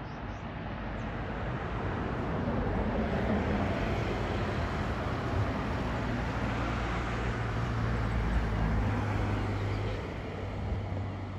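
A motor vehicle passing close by: a low engine hum and road noise that swell over the first few seconds, hold, and fade from about ten seconds in.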